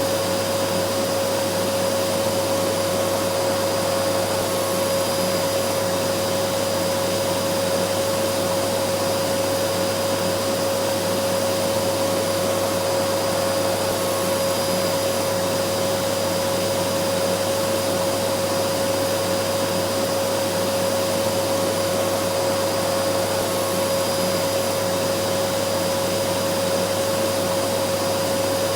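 Vacuum cleaner running steadily at constant speed, a continuous motor whine with a strong steady tone over a rushing airflow noise.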